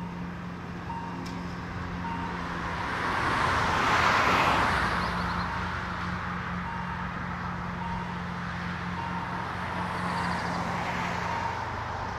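Level crossing warning signal repeating a short tone about every three-quarters of a second as the crossing closes for a train. A road vehicle passes, loudest about four seconds in, and a second, quieter one passes near the end.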